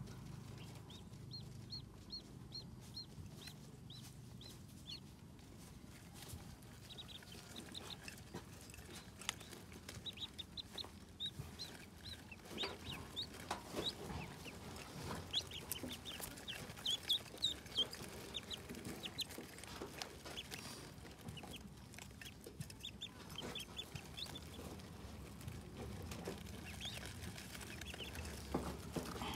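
A brood of newly hatched ducklings peeping: short, high-pitched peeps in quick runs, busiest in the middle, with scattered clicks and taps as they peck at their feed dishes.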